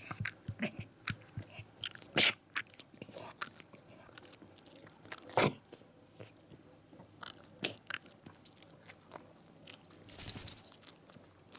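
A sick Shiba Inu's wet mouth noises: irregular licking and smacking clicks, with three louder short snorts spread through and a longer breathy one near the end, in a dog that is vomiting bile and having reverse-sneezing fits.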